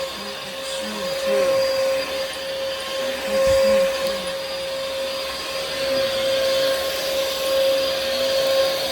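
Bissell upright vacuum cleaner running, a steady motor whine over the rush of suction air. The loudness swells and dips, with one short knock about three and a half seconds in.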